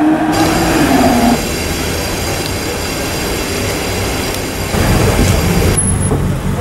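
Ferrari California V8 accelerating away, its note climbing and then easing off for about the first second. Then a steady street hiss with a thin high whine. Near the end a Porsche 911 GT3 RS's flat-six starts running low and steady as the car creeps along.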